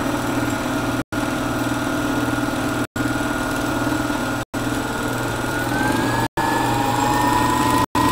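A half-horsepower variable-speed electric motor spins an aircraft alternator on a test bench, running with a steady hum. About five and a half seconds in, a whine joins it and rises slowly in pitch as the shaft speed goes up. The sound cuts out briefly every second or two.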